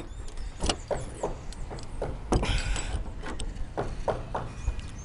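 A string of irregular knocks and clicks, about two or three a second, from tools and fittings being handled on a corrugated fibre-cement roof. The strongest knock comes about halfway through.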